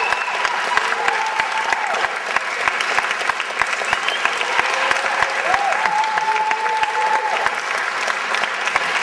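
Concert audience applauding steadily, with a few cheering voices calling out over the clapping.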